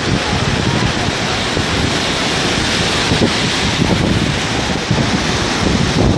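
Strong wind buffeting the microphone in gusts over the steady rush of rough surf breaking on the shore.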